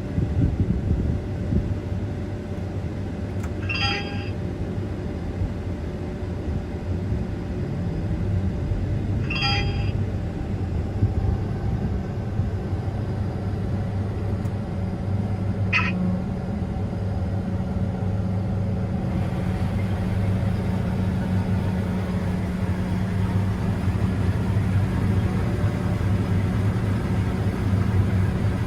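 Combine harvester running steadily, a low engine rumble with a humming tone. Three brief high-pitched blips come about four, ten and sixteen seconds in.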